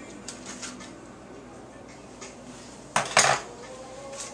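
Dishes clattering in a kitchen: one sharp, loud clatter about three seconds in, after a few seconds of quieter handling noise.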